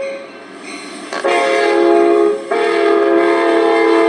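Train horn blowing its chord of several steady tones as the train passes, with a break near the start. The tones shift abruptly about two and a half seconds in: the Doppler drop in pitch as the train goes by.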